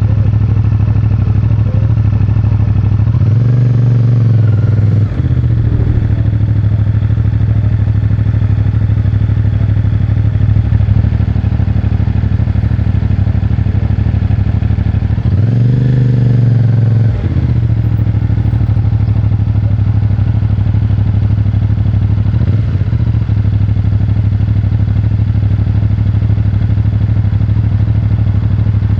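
CFMOTO 450MT's 449 cc parallel-twin engine running through its stock exhaust at steady cruising throttle. Twice, about 4 and 16 seconds in, the engine note rises and falls, then drops off abruptly.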